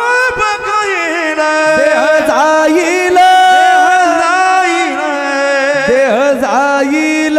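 Male kirtan singer holding a long, ornamented devotional melody without words, the pitch curving and sliding through the phrase over steady held accompaniment notes.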